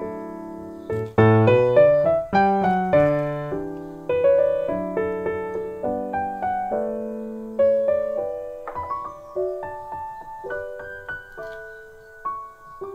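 Background piano music: a gentle melody and chords of struck notes, each ringing and fading away.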